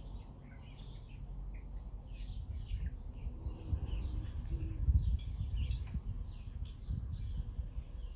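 Small birds chirping and singing continuously, many short calls, over a low uneven rumble that grows louder around the middle.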